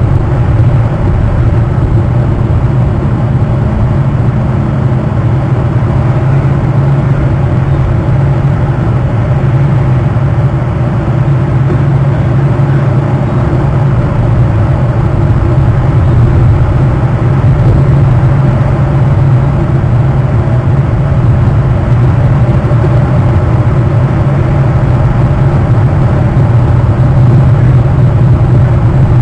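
Steady, loud low rumble with a hiss above it, unbroken and unchanging.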